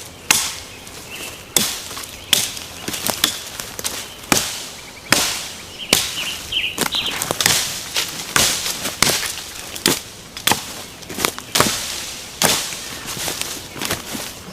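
Small forestry axe chopping branches off a felled small tree trunk: a quick, uneven series of sharp strikes, about one to two a second.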